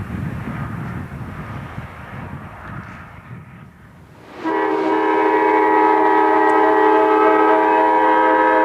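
EMD SD40-2 diesel locomotives working hard in notch 8 with a low rumble that fades over the first few seconds. About halfway in a locomotive air horn sounds one long multi-note chord, held to the end.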